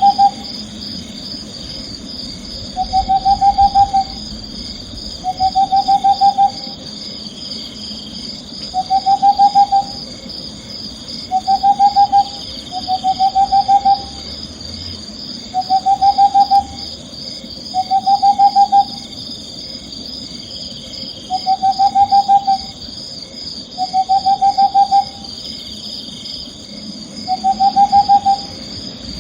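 An owl giving short trilled calls, each a quick run of notes about a second long and rising slightly, repeated every two seconds or so. Under them runs a steady high-pitched chirring of insects.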